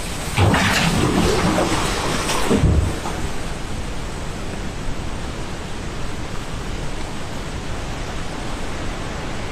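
Steady rushing roar of a river in spate carrying landslide debris. It is louder and busier for the first three seconds, with some higher cries in it, then settles to an even roar.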